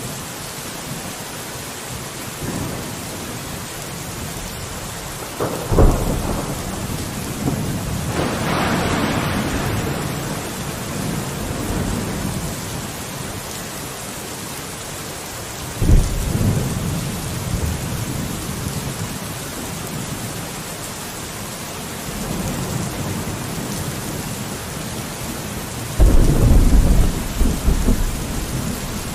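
Steady rain on a window with thunder: several sudden thunderclaps, each rolling off into a low rumble, with a heavier, longer rumble near the end.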